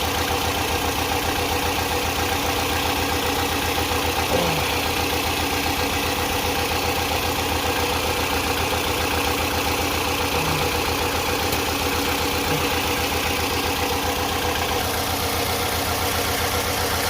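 2008 Toyota RAV4's four-cylinder engine idling roughly with an even pulsing beat, misfiring on cylinder 2 because of a bad fuel injector.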